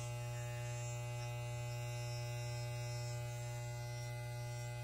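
Wahl electric hair clippers running with a steady, continuous buzz, full of overtones, that resembles an old fire alarm horn sounding in continuous mode.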